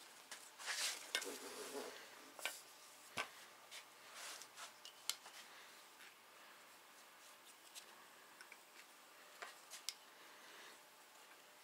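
Faint, irregular clicks, taps and a short rubbing scrape as a ratchet strap is worked over a VR6 cylinder head and small metal valve parts are handled. The clicks are densest in the first half and thin out later.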